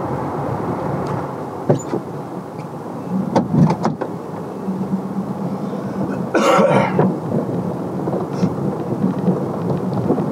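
Truck driving slowly over a rutted, snow-covered dirt track, heard from inside the cab: a steady low rumble of engine and tyres with scattered knocks as it bumps over the ruts, and a louder clatter lasting under a second about six seconds in.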